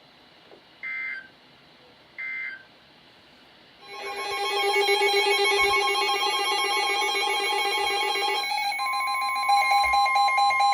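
Emergency Alert System digital data bursts: two short screeching bursts about a second and a quarter apart, the end-of-message signal closing a weather warning. About four seconds in, a loud electronic alert alarm with several pulsing tones starts, and near the end a steady warning tone joins it, heralding the next warning.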